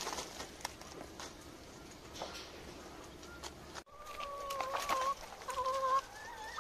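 Chickens clucking, faint at first; from about four seconds in, drawn-out held calls repeat several times.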